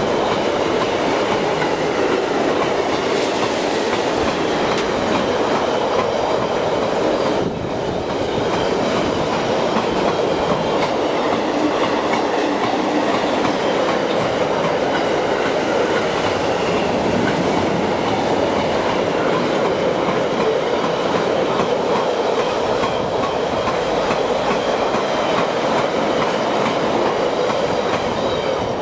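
Freight train of loaded double-deck car-carrier wagons rolling past at close range, its wheels rumbling and rattling steadily on the rails.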